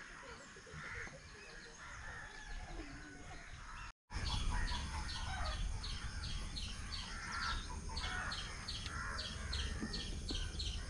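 Outdoor birdsong: scattered soft chirps, then, after a brief dropout about four seconds in, a bird calling a short high chirp over and over, several times a second.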